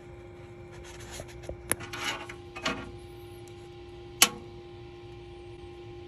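Hands working a small metal sensor clip on refrigerant tubing: rubbing and scraping with a few clicks, the loudest a sharp click about four seconds in, over a steady hum.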